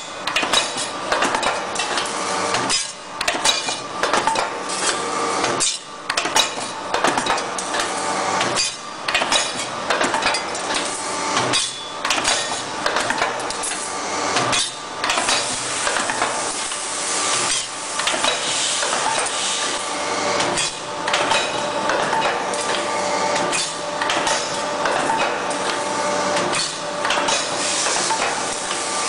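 Automatic wire-forming machine running, making metal fittings from wire: its forming tools clatter and clank metal on metal in a cycle that repeats about every three seconds, with a brief lull between cycles.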